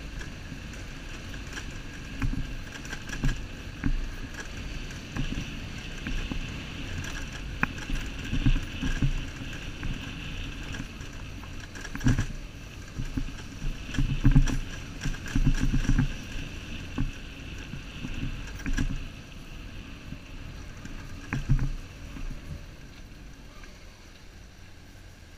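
Motorcycle ridden slowly over a rough, rocky dirt road, recorded from a camera on the bike: a low steady engine rumble with irregular thuds and knocks as the bike jolts over stones and ruts.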